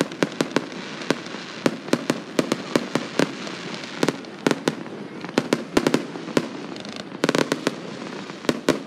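Aerial fireworks bursting in a rapid, irregular string of bangs and cracks, several a second, with a dense flurry of crackling about seven seconds in.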